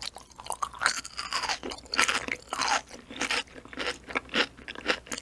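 Close-miked chewing of bouncy, jelly-like ocean sunfish jelly: rapid, irregular wet crunches and squelchy bites.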